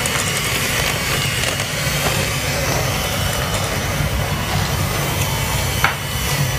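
Electric hand mixer running steadily, its beaters whirring through brownie batter in a glass bowl, with one light knock near the end.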